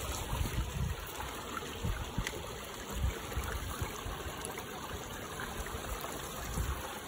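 River water trickling and running over stones, steady, with irregular low gusts of wind buffeting the microphone.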